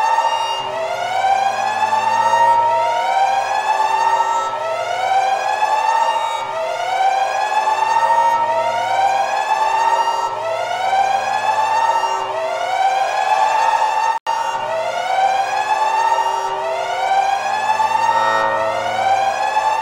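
Wailing siren sound effect, a warning alarm, each wail rising in pitch and repeating about every two seconds, with a brief dropout about two thirds of the way through.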